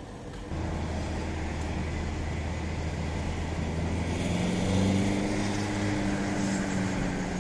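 Car engine and road noise heard from inside the cabin, stepping up in level about half a second in. About four seconds in the engine note grows louder and slightly higher as the car pulls on.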